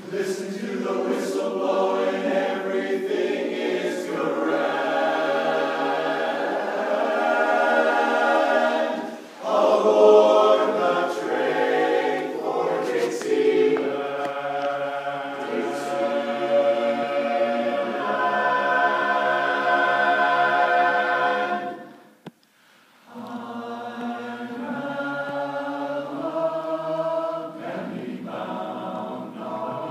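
Men's barbershop chorus singing a cappella in close harmony. There is a short dip about nine seconds in and a pause of about a second about three quarters of the way through, after which the singing picks up again.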